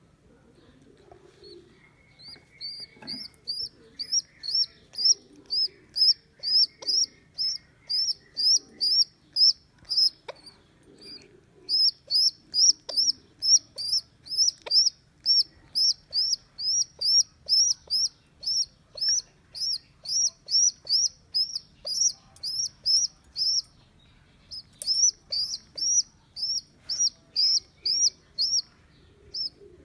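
A baby pigeon (squab) squeaking over and over: short, high, rising squeaks, about two a second, with a few brief pauses.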